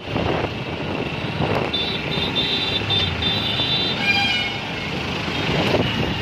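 Road traffic heard from a moving vehicle: a steady rush of engine and tyre noise. About two seconds in comes a run of short high beeps from a vehicle horn, and a brief honk sounds about a second later.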